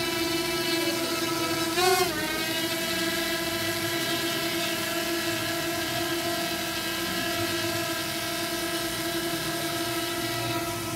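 Quadcopter drone's propellers humming steadily in hover, one even multi-tone whine, with a brief wobble in pitch about two seconds in as the motors change speed.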